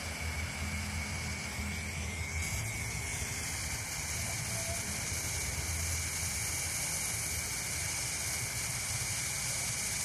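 Hand-held lusis, a coloured-fire stick firework, burning with a steady hiss. The hiss turns brighter and sharper about three seconds in.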